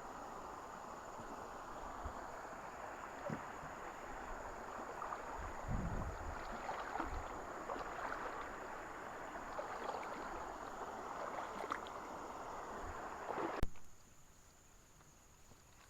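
Moving river water rippling and splashing around a small boat, with a few light knocks and a dull thump about six seconds in; the water sound cuts off abruptly near the end.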